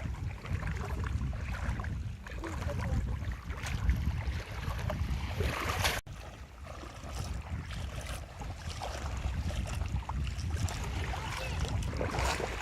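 Fishing boat under way at sea: a steady low rumble with wind and water noise, cutting out briefly about six seconds in.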